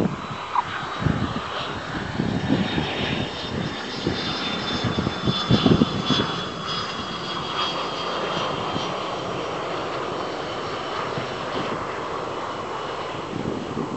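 Jet Provost's Armstrong Siddeley Viper turbojet whining at low power as the jet rolls out along the runway after landing, a high whine slowly falling in pitch. Gusts of wind buffet the microphone in the first half.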